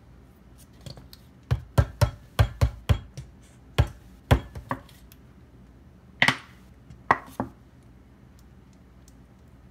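A partly filled plastic gel bottle tapped against a countertop: a quick run of about ten sharp knocks, then three more after a pause. The tapping settles the thick gel down into the bottle.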